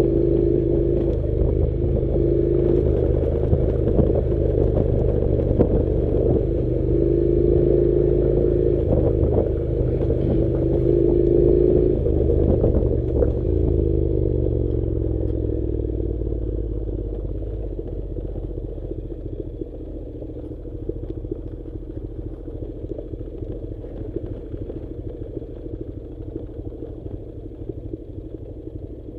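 Honda NC700 motorcycle's parallel-twin engine running while riding over a rough track, with clattering and rattling. About halfway through the engine note drops and the sound grows quieter, settling to a lower, steady running.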